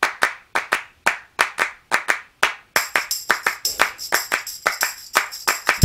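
Background music intro built on rhythmic hand claps, about four a second, with high sustained instrument tones joining in about halfway through.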